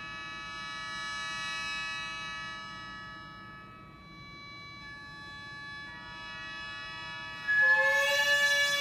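Gagaku netori prelude: the shō mouth organ holds a sustained chord of many blended reed tones, fading and shifting to a new chord about halfway. Near the end a much louder double-reed hichiriki enters on a held note over it.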